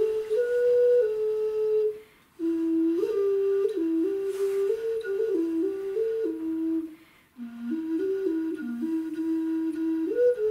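Clay ocarina playing a slow stepwise tune in clear, pure notes, with short breaks for breath about two and seven seconds in.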